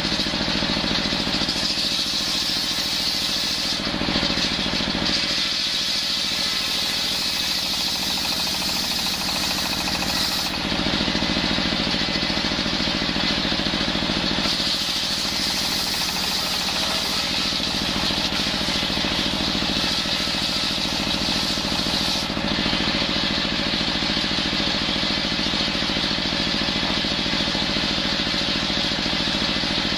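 Belt-driven table circular saw running steadily while ripping coconut wood into rafter stock. A hissing cutting noise comes and goes as boards pass the blade, in three spells, and stops about two-thirds of the way in, leaving the saw and its engine running free.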